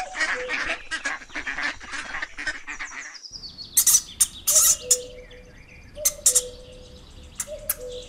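Ducklings peeping in a dense, fast chatter that cuts off suddenly about three seconds in. Scattered short high squeaks and clicks follow.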